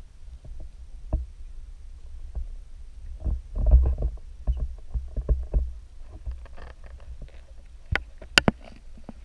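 Muffled low rumble and knocks from a GoPro's underwater housing being jostled and scraped, loudest about four seconds in. Near the end come a few sharp clicks as a crab's legs and claws tap on the housing.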